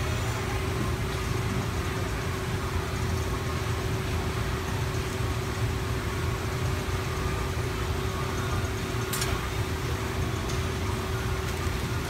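Steady machinery drone with a constant mid-pitched hum over a low rumble, and one brief click about nine seconds in.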